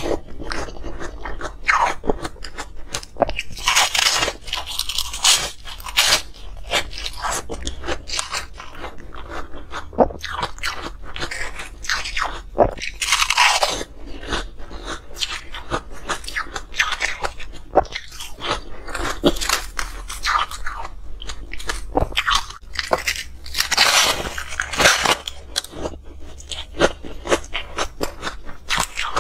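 Close-miked crunching and chewing of frosty ice bitten off a block. Dense, crisp crackling runs throughout, with louder bursts at each fresh bite, several times over.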